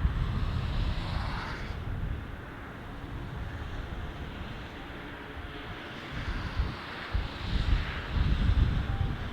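Airbus A321 jet engines rumbling, mixed with wind buffeting the microphone, quieter in the middle and building again over the last few seconds.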